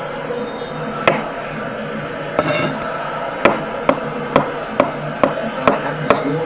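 Knife chopping on a cutting board: a few scattered knocks, then steady chops about two a second through the second half.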